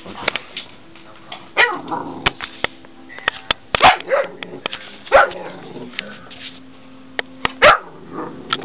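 Pitbull puppy play-barking: about four short, sharp barks that drop in pitch, with quick clicks and scuffles in between.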